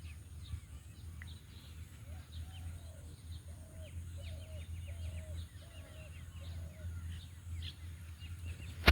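Birds chirping outdoors, with one bird giving a run of about six short, evenly spaced calls in the middle, over a low steady rumble. A sharp knock comes at the very end.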